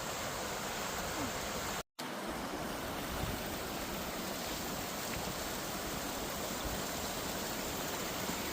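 Steady rush of flowing river water. A brief dropout to silence about two seconds in.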